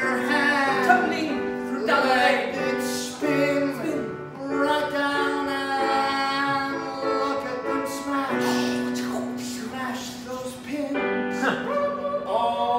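A man singing an improvised serenade over electric keyboard accompaniment, holding long notes over sustained chords.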